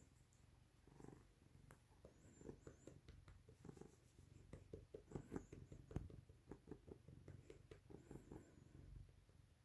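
Domestic cat purring faintly as it is stroked on its belly: a low, pulsing purr.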